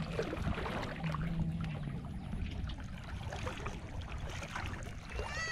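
Shallow water sloshing and trickling around a person wading through it, with small splashes.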